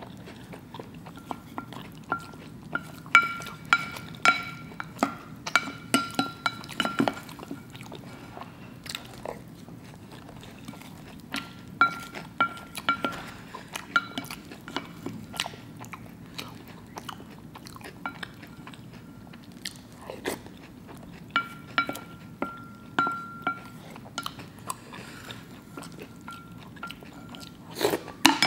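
Crunchy cereal being chewed, with a wooden spoon clicking and scraping against a ceramic bowl, over faint background music.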